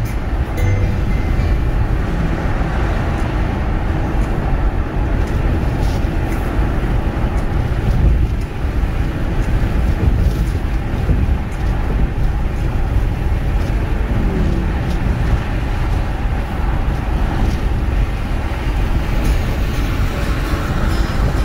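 Car driving on the road: a steady, low rumble of tyre and engine noise.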